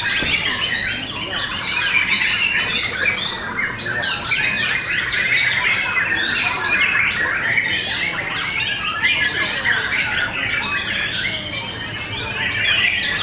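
Many white-rumped shamas singing at once: a dense, unbroken tangle of overlapping rising and falling phrases and chattering calls.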